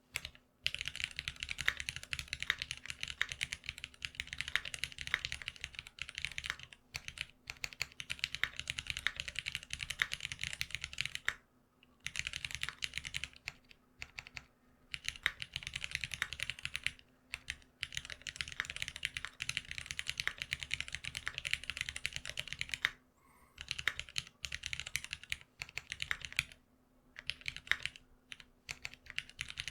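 Fast typing on a GeonWorks F1-8X custom keyboard with lubed Cherry Retooled Black linear switches on 65 g TX long springs: long runs of rapid keystrokes with several brief pauses.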